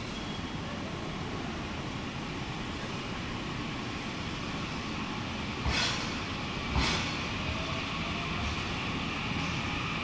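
Train Suite Shiki-shima (JR East E001 series) pulling away from the platform: a steady rolling rumble of the moving train, with two sharp clacks from the wheels on the track about six and seven seconds in.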